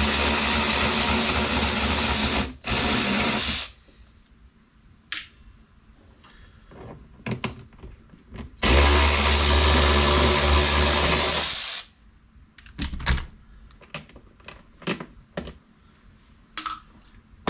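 Small rechargeable cordless screwdriver whirring steadily as it backs screws out of a motorcycle speaker lid. It runs twice for about three seconds each, the first run briefly interrupted, with light clicks and knocks of handling between and after.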